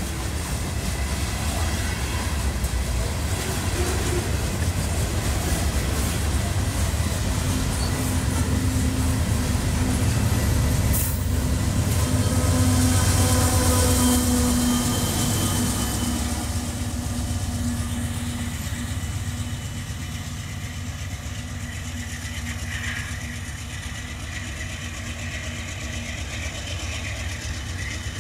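Freight train passing close by: the steady rumble and rattle of covered hopper cars rolling on the rails. Partway through, a mid-train Canadian Pacific diesel locomotive passes. Its engine drone makes this the loudest stretch, and the sound eases off after it has gone by.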